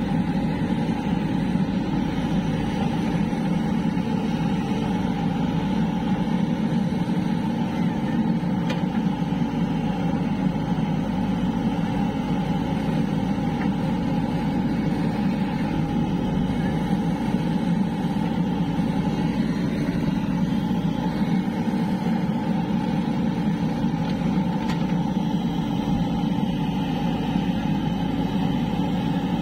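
JCB 3DX backhoe loader's diesel engine running steadily, with no revving up or down.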